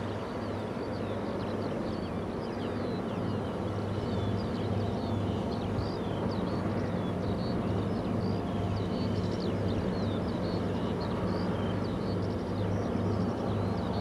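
O&K bucket-wheel excavator 258's machinery running: a steady low drone with a hum that throbs regularly, and short high chirps scattered over it.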